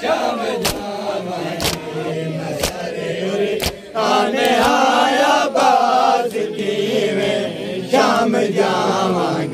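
A crowd of men chanting a noha lament in unison, with sharp chest-beating slaps (matam) about once a second. From about four seconds in the slaps stop and the chanting voices are louder and closer.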